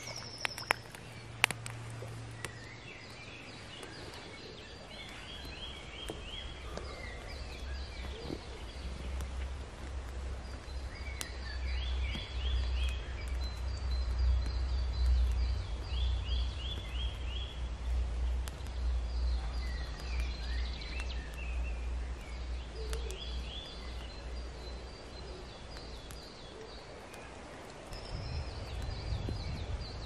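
Songbirds singing short phrases of quick repeated notes every few seconds, over a low rumble that builds toward the middle and fades near the end. A few sharp clicks at the very start.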